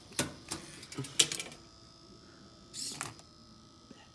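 Sharp clicks and knocks from a metal-framed marble sorter as marbles drop and roll through its rails and mechanism: a quick cluster over the first second and a half, another about three seconds in.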